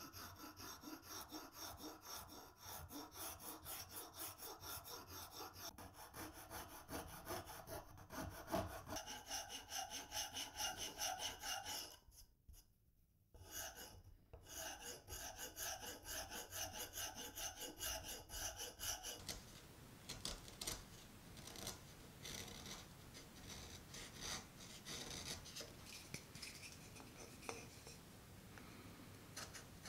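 A steel file rasping back and forth over the wooden liner of a knife sheath held in a bench vise, in rhythmic strokes a couple of times a second, with a short break about twelve seconds in. In the second half the strokes grow lighter and less regular as a small file works inside the liner's slot.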